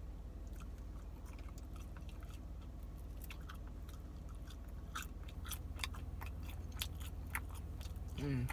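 Close-up mouth sounds of a person chewing grilled chicken: wet smacks and clicks, getting more frequent from about three seconds in, over a steady low hum. A brief hummed voice sound comes near the end.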